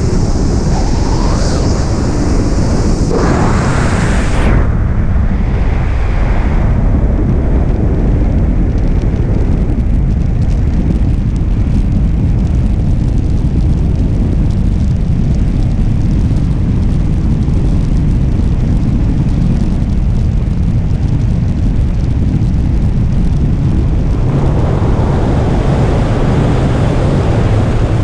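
Wind rushing over a skydiver's camera microphone: a loud, steady roar, with a higher hiss over it for the first four seconds or so.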